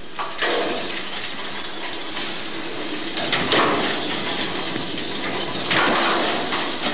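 Top terminal of a 1963 Riblet fixed-grip double chairlift running backwards out of control with the loaded haul rope and chairs: a loud, continuous rushing clatter with louder bangs about half a second in, around three and a half seconds, and near six seconds. It is a runaway rollback, the lift reversing with no brake set after the wrong stop button was pressed.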